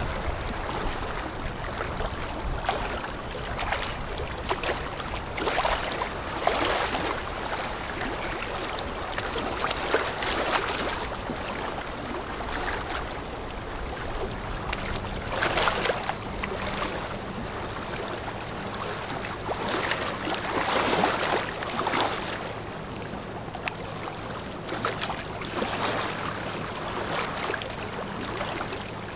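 A passing container ship's bow wave rushing and splashing in surges every couple of seconds, with a steady low engine hum coming in about halfway through.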